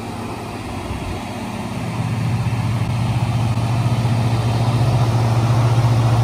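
1972 Ford Mustang Grande's engine idling with a steady low hum that grows louder about two seconds in. The engine is running on a cold start after sitting unused, on a high idle that the owner means to knock down.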